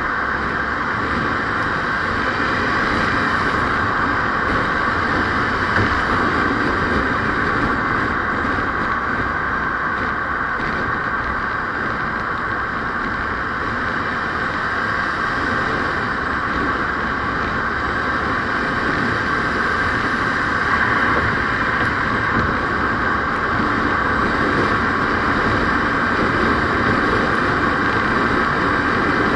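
Steady road and engine noise of a vehicle driving at an even pace, with no changes in speed or level.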